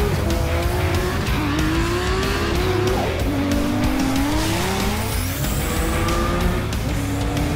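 A car engine revving hard, its pitch climbing and falling back several times in a row, with tyre squeal, over background music.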